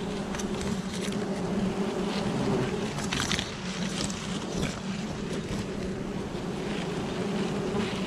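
A swarm of wild honeybees buzzing around their comb as it is cut from the branch: a steady, even hum, with several short rustles and crackles over it, the loudest a little past three seconds in.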